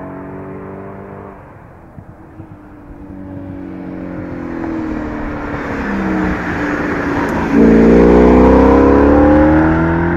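Audi S5 with an AWE Tuning aftermarket exhaust accelerating past. The engine note builds steadily, then turns suddenly much louder about seven and a half seconds in, climbing in pitch as the car revs hard.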